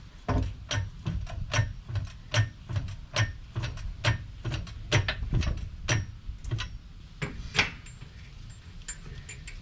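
Sharp metallic clicks, about two to three a second and a little uneven, each with a dull thud, from hand tools working the rear shock's lower mounting bolt back into the trailing arm. They stop about three-quarters of the way through.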